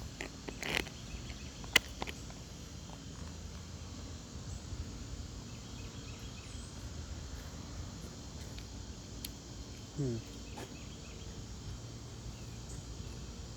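A few sharp clicks in the first two seconds, the sharpest about two seconds in, from a spoon stirring a freeze-dried meal pouch; then a steady outdoor background with faint insect chirping and a short rising sound about ten seconds in.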